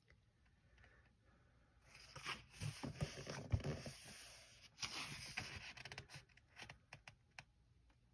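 Pages of a coloring book being turned and handled: paper rustling and sliding in two stretches, about two seconds in and again near five seconds, followed by a few light taps.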